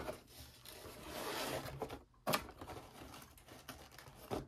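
A cardboard box sliding out of its cardboard sleeve: a scraping rasp of card on card, then a sharp knock a little past two seconds in and light rustling and tapping of the cardboard.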